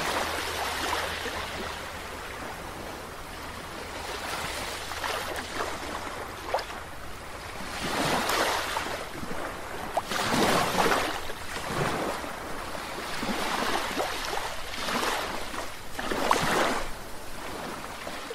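Ocean waves washing in over a shallow shore: a steady hiss of surf that swells and eases every few seconds.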